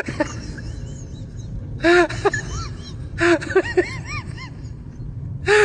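A comedy sound effect made of short chirps, each rising and then falling in pitch, coming in quick runs over a steady low rumble, with short bursts of noise about two and three seconds in.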